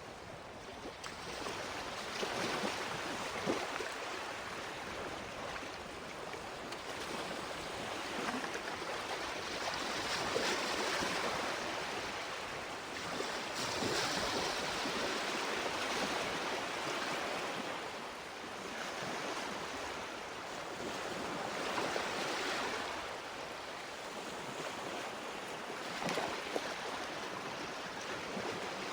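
Ocean surf washing onto a beach: a continuous rushing hiss that swells as each wave breaks and eases between them, every few seconds.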